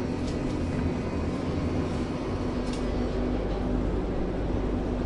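Berlin U5 U-Bahn train running: a steady rumble with a steady hum over it and a couple of faint clicks.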